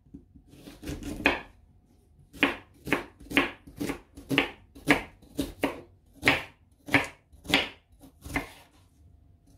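Kitchen knife chopping onions on a wooden cutting board: about fifteen sharp chops, roughly two a second, with a short pause after the first three.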